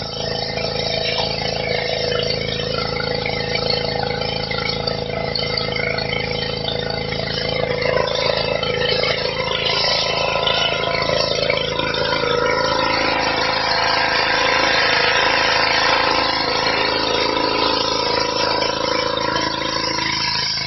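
Petrol-engined high-pressure washer running steadily, its water jet spraying onto stone paving with a continuous hiss that grows a little louder midway.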